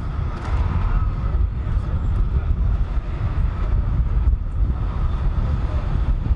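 City street traffic going by, a steady low rumble of passing cars and trucks.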